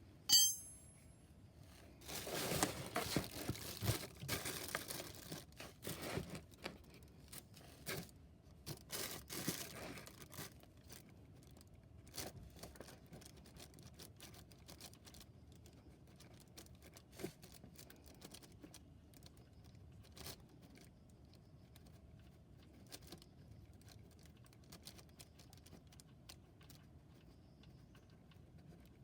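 Hand-handling noises: a short bright clink about half a second in, then about eight seconds of crinkling and tearing, then scattered small clicks and taps.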